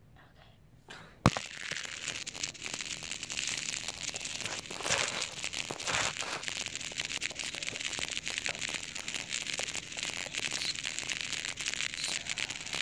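A sharp knock about a second in, then continuous crackling, crinkling rustle of material close to the microphone.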